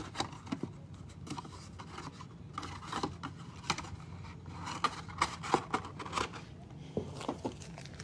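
Foil trading-card packs and a cardboard hobby box being handled on a tabletop: scattered light clicks, scrapes and crinkles, busiest a little past the middle.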